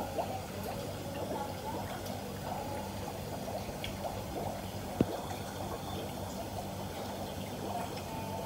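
Water bubbling and trickling over a steady low hum, with one sharp click about five seconds in.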